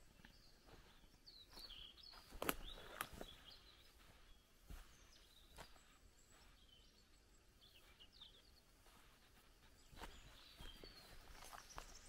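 Faint footsteps on the forest floor, a few soft steps, the loudest about two and a half seconds in, with small birds chirping now and then.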